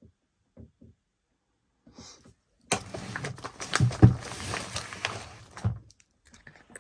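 Consumer firework going off: about three seconds of dense crackling with many sharp cracks and a few heavy thumps, stopping suddenly.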